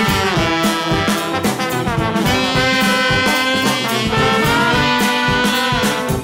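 Background music led by brass instruments, with a steady beat.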